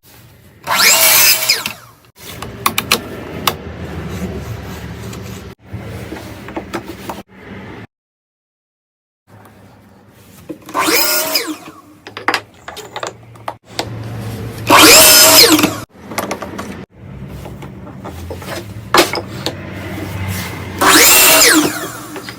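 Small power saw running, with four loud cuts into wood or MDF of about a second each, spread through the stretch; a brief total silence around the middle.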